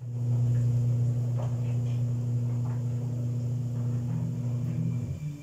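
A steady low hum that stops near the end, over faint bubbling from a covered pot of pork hock boiling on a gas stove.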